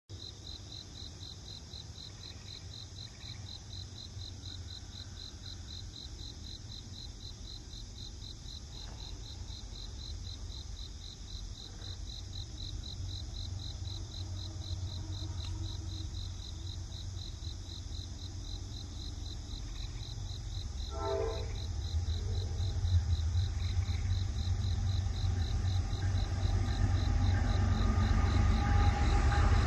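Insects chirping in an even, rapidly pulsing chorus, while the low rumble of an approaching Norfolk Southern diesel freight train grows steadily louder over the second half.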